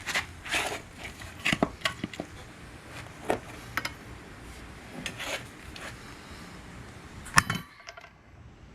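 Hammer striking metal in irregular blows, driving a universal joint bearing cap out of a Jeep front axle shaft yoke. The loudest strike comes near the end.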